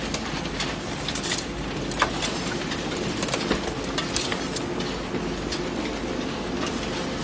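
Recycling machinery running steadily with a hum, as waste cardboard and packaging ride a conveyor, with irregular clicks and rattles throughout.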